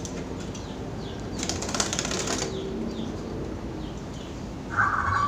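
Bird wings flapping fast for about a second: a zebra dove fluttering in its hanging cage as the cage is taken down. Near the end a loud, rapidly pulsing call starts up.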